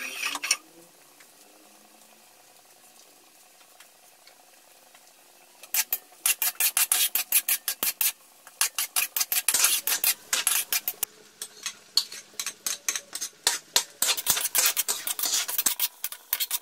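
Metal spatula scraping and stirring in a metal wok of sautéing chopped onion. After a short scrape at the start and a few quiet seconds, rapid scraping strokes begin about six seconds in, around five or six a second.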